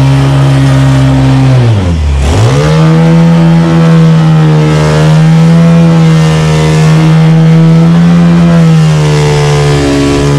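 Honda Titan 150 single-cylinder four-stroke motorcycle engine powering a mini jet boat under way. About two seconds in, the revs drop sharply and climb straight back up, then hold high and steady, easing off slightly near the end.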